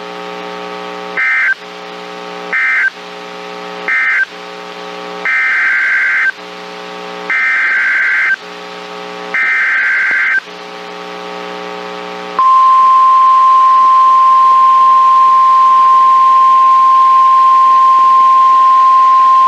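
Emergency Alert System data bursts from a NOAA Weather Radio broadcast played through a TFT EAS 911 receiver. There are three short end-of-message bursts, then three longer SAME header bursts, with a low buzzing tone between each one. About twelve seconds in, the steady 1050 Hz weather-radio alert tone starts and holds.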